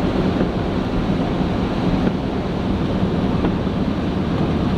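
Steady driving noise of a 1998 Mitsubishi Delica van under way on the highway: engine, tyres and wind blend into one even rushing drone.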